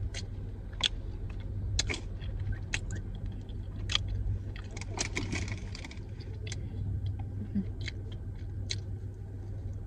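Steady low hum, with scattered sharp clicks and a short rustle about five seconds in.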